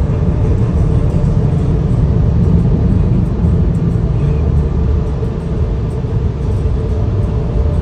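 Car wash dryer blowers blasting air over the car, heard from inside the cabin: a loud, steady rushing rumble that eases slightly near the end.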